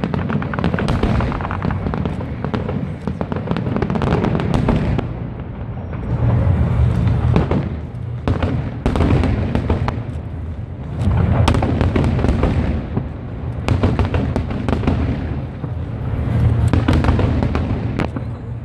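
Fireworks show: aerial shells bursting and crackling in a dense, unbroken barrage with deep booms, the loudness swelling and easing in waves every two to three seconds.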